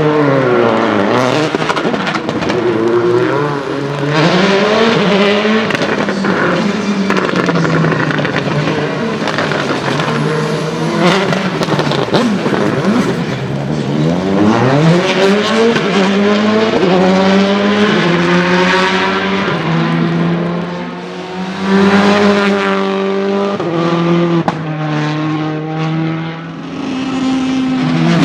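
Citroën Xsara WRC rally car's turbocharged four-cylinder engine revving hard, its pitch climbing and falling in repeated quick sweeps through the gears. In the second half it holds steadier notes, with short drops in revs.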